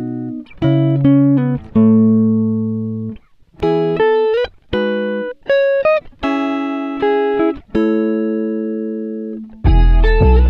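Background music: a slow melody of separate ringing notes, each struck and fading, with a fuller, louder passage with deep bass starting near the end.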